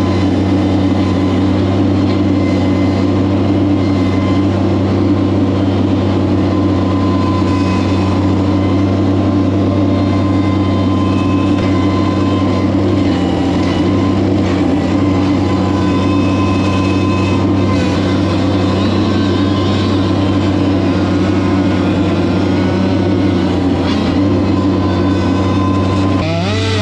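Heavy equipment engine running steadily at a constant speed, a loud, even low drone.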